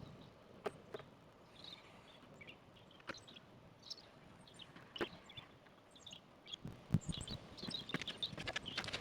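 Faint bird chirps with a few sharp light clicks or knocks spaced a second or two apart, and rustling handling noise building over the last two seconds.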